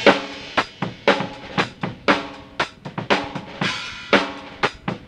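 Tama Imperialstar drum kit with Meinl cymbals played in a steady beat of bass drum, snare and cymbals, about four strokes a second, opening on a loud hit.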